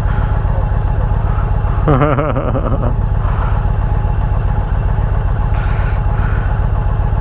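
Indian Challenger Elite's 108 PowerPlus V-twin idling steadily through a Bassani 2-into-1 exhaust, an even low pulse that is not revved.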